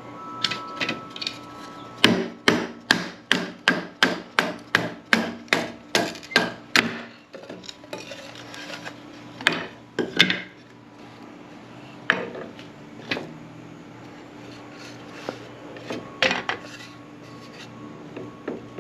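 Repeated striking as a cedar fence picket is split into pieces. First comes a fast, even run of about three blows a second for some five seconds, then a few single blows.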